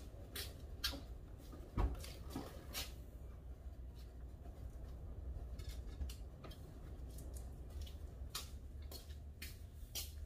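Faint scattered clicks and knocks as an SUV's rear hatch is opened and things are handled in the cargo area, over a low steady rumble, with one louder thump about two seconds in.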